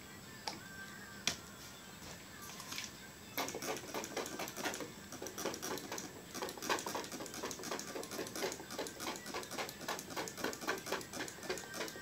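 Plastic trigger spray bottle pumped over and over, a quick run of spritzes a few times a second starting a few seconds in, misting water onto wet paint to spread it out. A couple of light clicks come before the spraying.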